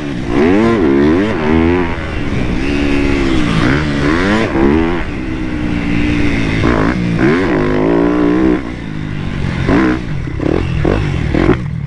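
Motocross bike engine revving as it is ridden around a dirt track, heard from an onboard camera: the pitch climbs and drops back again and again as the rider opens and rolls off the throttle. In the last few seconds it turns choppy, with short blips of throttle.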